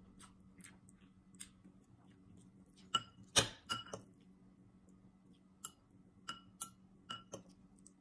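Metal spoon and fork clinking and tapping against plates and dishes: a dozen or so short clicks, some ringing briefly, the loudest cluster about three to four seconds in, over a faint steady hum.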